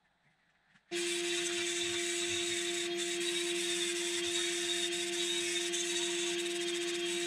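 Handheld electric power tool starting abruptly about a second in and then running steadily with a constant motor whine and a fast, even pulsing over a hiss.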